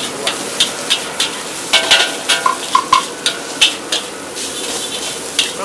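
Street-vendor wok frying: a metal spatula clanking and scraping against the wok, about two or three sharp strikes a second, over a steady sizzle of frying.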